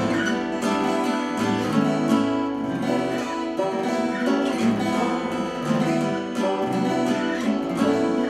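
Several acoustic guitars strumming and picking together through an instrumental tune in a minor key, with a steady rhythm of sharp pick attacks.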